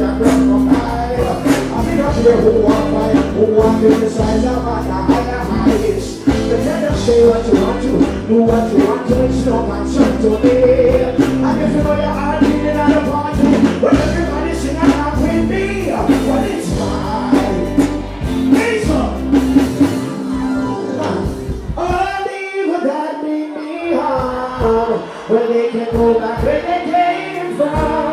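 Live stage show: a male singer singing into a microphone over loud backing music with a heavy bass line. About 22 seconds in the bass drops out for a couple of seconds while the voices carry on alone, then the beat returns.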